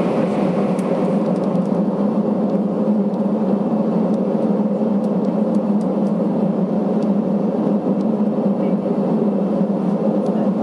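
Airbus A320 cabin noise while taxiing: the steady hum of the jet engines at idle and the airframe, heard from inside the cabin.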